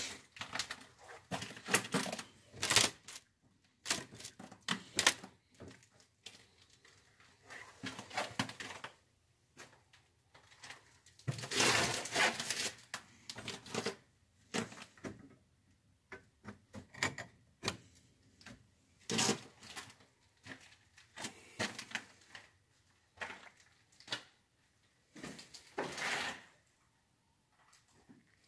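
Irregular crunches, scrapes and knocks, with a longer rustling stretch about twelve seconds in.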